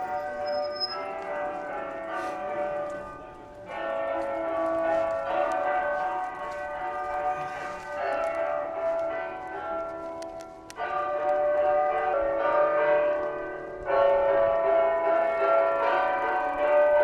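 Bell-like ringing tones, many held notes sounding together as chords, with the chord changing suddenly about four, eleven and fourteen seconds in.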